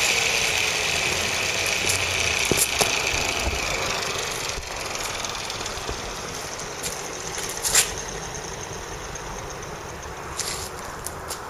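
Two-stroke brushcutter engine easing down from high revs and running on at low speed, the sound gradually fading. A sharp click comes a little under 8 seconds in, and a few smaller ones follow near the end.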